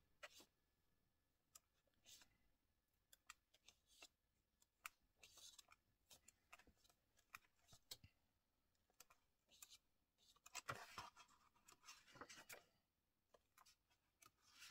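Faint paper rustling and soft ticks of a coloring book's pages being turned by hand, with a few louder page swishes around eleven and twelve seconds in.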